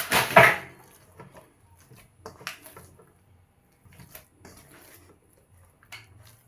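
Soft, sticky bread dough being squeezed and flipped by hand in a mixing bowl as melted margarine is worked into it: a loud squelching burst at the start, then faint, scattered little squishes and taps.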